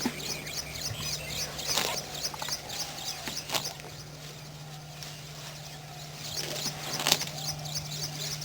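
A bird calling with a fast series of short, high chirps, several a second, in two runs with a pause between, over a steady low hum and a few sharp clicks.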